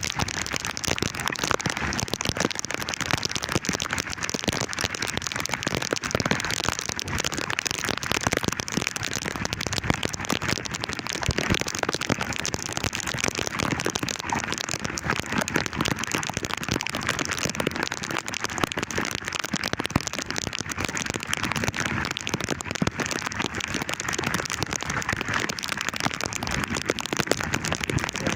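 Heavy rain falling steadily, a dense patter of drops with no let-up.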